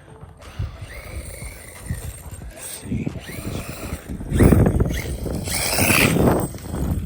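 HPI Baja 5B 1/5-scale RC buggy's brushless electric drive accelerating in short bursts, with brief rising motor whines. Two loud rushes of noise come about four and a half and six seconds in, with wind buffeting the microphone.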